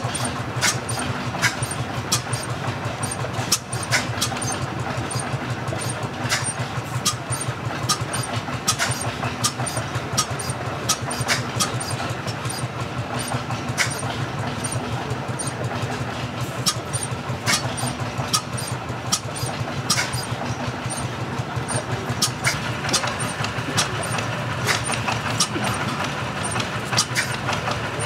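Old stationary engines running steadily: a continuous low drone with frequent sharp clicks and a faint high tick about twice a second.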